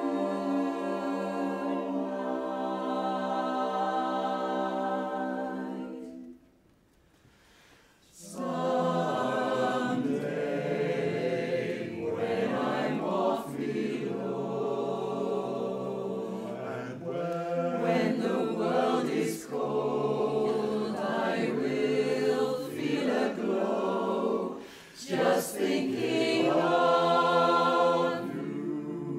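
Mixed-voice barbershop chorus singing a cappella in close harmony. A held chord ends about six seconds in, and after a near-silent pause of about two seconds the chorus comes back in and sings on.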